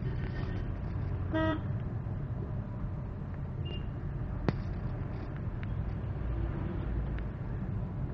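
Steady engine and road rumble heard inside a moving Maruti Suzuki Swift's cabin. A vehicle horn gives one short toot about a second and a half in, and there is a single sharp click a little after four seconds in.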